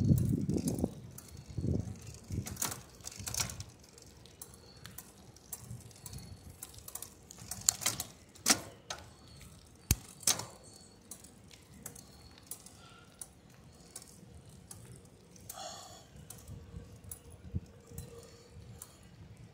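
Bicycle rattling and clicking with irregular sharp clicks as it rides over a cracked paved trail. A low rumble fades out about a second in.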